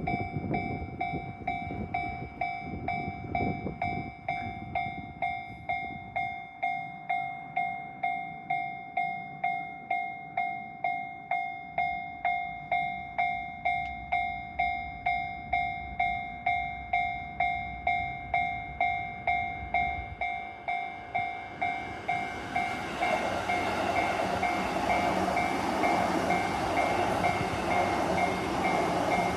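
A Japanese level crossing's electronic warning bell rings steadily at about two dings a second. A train rumbles past at the start, and another train grows loud over the bell about three-quarters of the way through.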